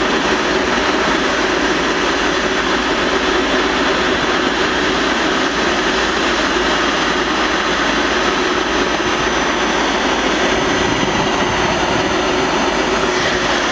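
Steady, loud jet-turbine noise with a faint high whine running through it.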